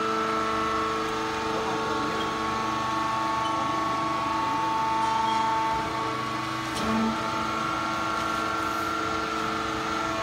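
Wood sawdust pallet hot press machine running: a steady industrial machine hum made of several held whining tones, with the pitch pattern shifting partway through and a faint click near the end.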